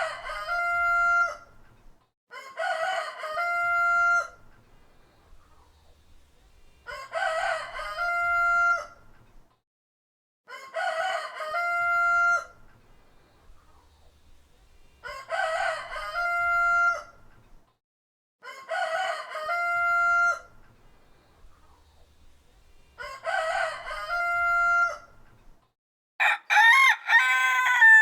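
A rooster crowing, cock-a-doodle-doo, seven times in a row, each crow about two seconds long and ending on a held note. Near the end a different, wavering high call is heard.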